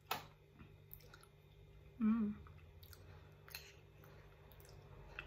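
Soft mouth sounds of someone chewing a spoonful of creamy leche flan, with small clicks and lip smacks and a brief voiced murmur of appreciation about two seconds in.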